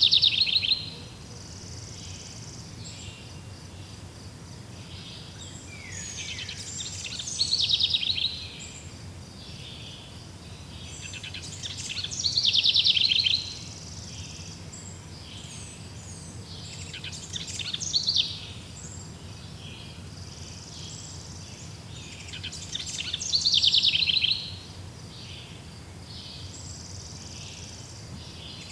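A songbird repeating the same loud, high trilling song phrase about every five to six seconds, each phrase lasting one to two seconds and growing louder toward its end, over a steady background of insects.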